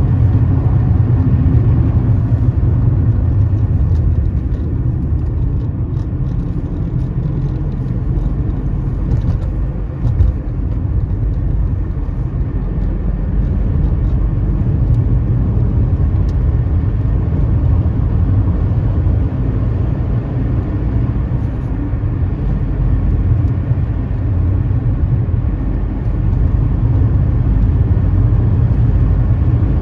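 Car driving along a rough country road: a steady low rumble of engine and tyres, with one brief knock about ten seconds in.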